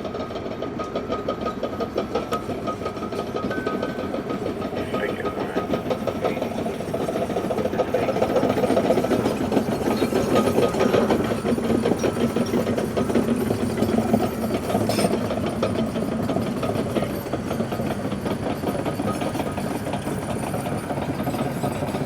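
Caterpillar D6K2 XL bulldozer's diesel engine running as the dozer tracks along, with a fast, steady clatter; it grows louder for a few seconds in the middle.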